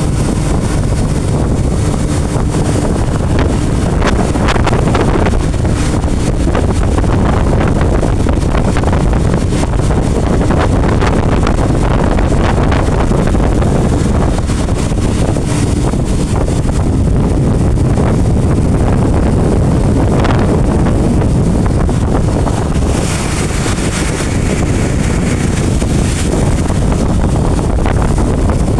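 Wind buffeting the microphone on a speedboat under way, over the steady drone of the boat's motor and rushing water.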